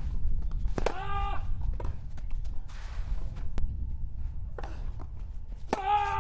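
A tennis player's grunts as he hits the ball: two drawn-out, high-pitched shouts, one about a second in and one near the end. Each begins with the pop of the racquet striking the ball, and there are lighter ball hits in between.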